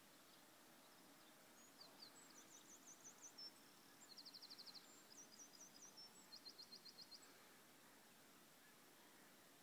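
A songbird singing faintly, in a few short phrases of high, quick repeated notes and rapid trills. The song begins about two seconds in and stops a couple of seconds before the end, over a faint steady hiss of open air.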